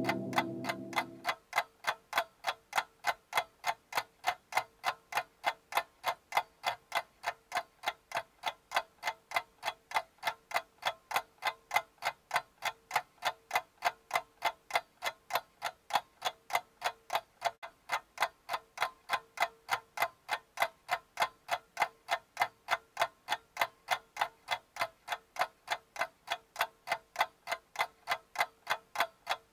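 A clock ticking steadily with fast, even ticks, about two to three a second. A louder sound fades out in the first second or so before the ticking stands alone.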